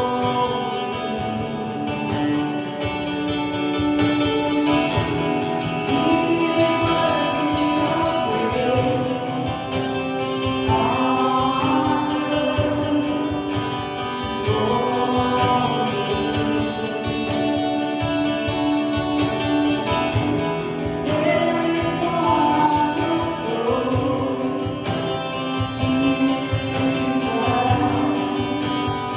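Gospel worship music: voices singing together over guitar and a steady beat.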